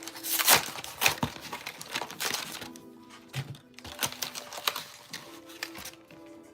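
Crinkling and light clicking of Pokémon card packaging being handled, irregular crackles throughout, over steady background music.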